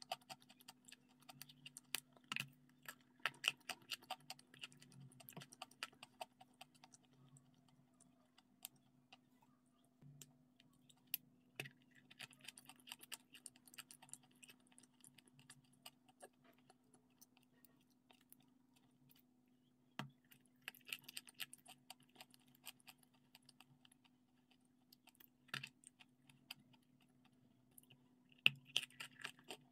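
Close-up mouth sounds of someone chewing a soft cream-covered pastry: clusters of quick smacking and clicking, in several bursts with pauses between, over a faint steady hum.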